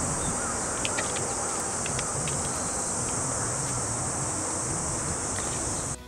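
Steady high-pitched insect chorus that cuts off suddenly near the end, with a few faint clicks in the first couple of seconds.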